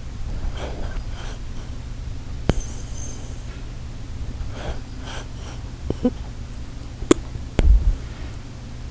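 A sleeping Shiba Inu snoring, with slow, wheezy breaths about every four seconds over a steady low hum. A few sharp clicks and a low thump come near the end.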